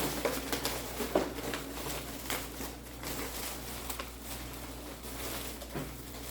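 Faint rustling and light clicks of small items and packaging being handled, over a steady low hum.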